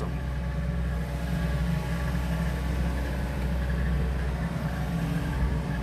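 SANY SY80U mini excavator's diesel engine running steadily while the machine swings.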